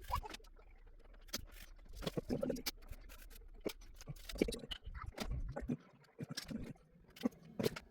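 Scattered clicks, taps and scraping from hands handling the parts of an old desktop computer as it is taken apart and cleaned.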